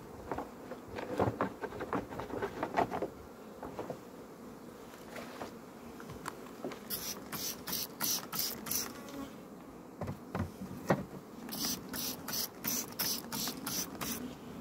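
Honeybees buzzing around an open hive, with wooden hive frames knocking as a frame of wax foundation is handled and set in. Midway and again near the end come two quick runs of sharp, high hissing strokes, about three a second.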